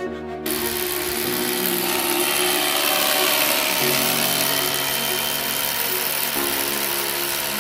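A power tool running steadily with a loud, even noise, starting about half a second in, over background music.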